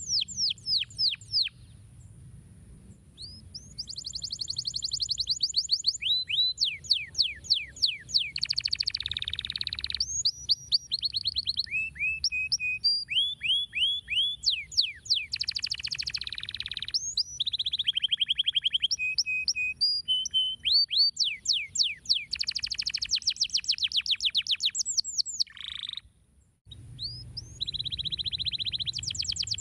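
Domestic canary singing a long, varied song of rapid trills and rolls, many of them made of quick downward-sweeping notes, with a brief pause about three-quarters of the way through.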